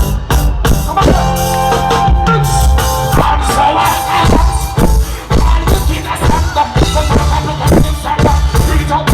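Live reggae band music: a drum kit keeping a regular beat under a heavy bass line and sustained keyboard or guitar tones.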